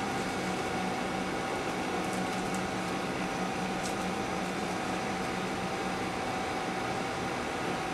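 Steady air-handling hum from room ventilation machinery: an even rushing noise with a faint mid-pitched tone and a lower tone beneath it.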